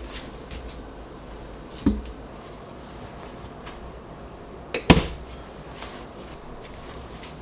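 Tableware being handled: a few knocks and clinks of dishes and utensils, with two louder knocks about two and five seconds in.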